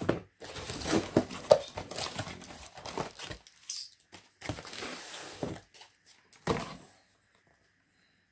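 Cardboard shipping box being opened and rummaged by hand: irregular crinkling and scraping of the flaps, with knocks from the packaged items inside, stopping about seven seconds in.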